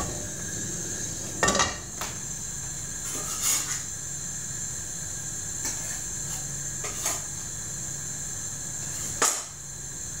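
A non-stick frying pan set down on a gas hob's grate with a clatter about a second and a half in, followed by a few lighter knocks and clinks of kitchen utensils, over a steady high hiss.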